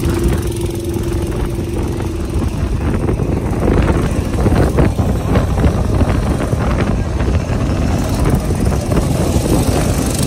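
Go-kart engine running as the kart drives around the track, with wind rushing on the microphone. A steady hum in the first couple of seconds gives way to louder, rougher running from about four seconds in.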